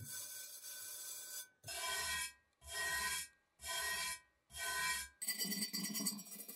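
Hand wire brush scrubbing rust off the bottom of a cast iron Wagner skillet: one longer scrub, then four separate strokes about one a second, then faster, continuous scrubbing near the end.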